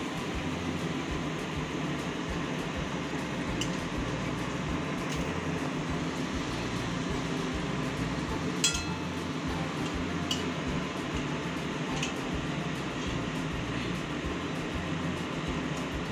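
Kachoris deep-frying in hot oil in a steel kadai, a steady sizzle. A metal utensil clinks against the pan a few times, the sharpest clink about halfway through.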